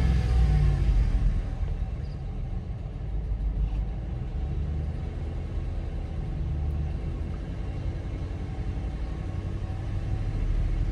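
Dodge Ram 1500's 5.7-litre Hemi V8 running with a low rumble, louder for the first second or so, then settling to a steady idle. It idles with a cylinder 6 misfire and a slight shake, which the owner suspects may come from the MDS.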